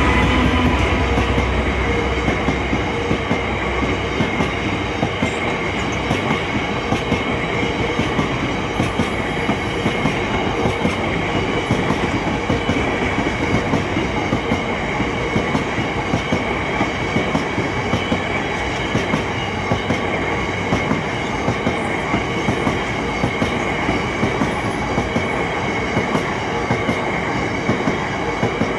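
Freight train of Drax biomass hopper wagons rolling past at speed close by: a steady rumble of steel wheels on rail with a regular clickety-clack as the wagons' wheelsets cross the rail joints, and a steady high ring over it. The Class 66 diesel locomotive's engine drone fades out in the first couple of seconds as it moves away.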